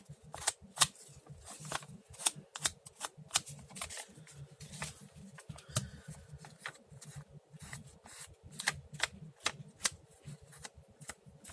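Irregular light taps and paper handling as an ink pad is dabbed along the edges of paper to darken them.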